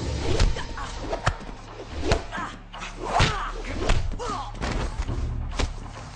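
Film fight sound effects: a rapid series of sharp punch and kick impacts, about seven hits in six seconds, with short grunts from the fighters between them.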